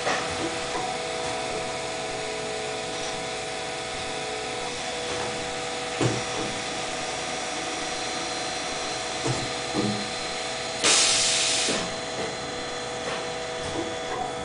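Electric motor of a roundness-test rig running steadily, a hum of a few held tones, with a few light knocks. About three-quarters of the way through comes a loud hiss lasting about a second.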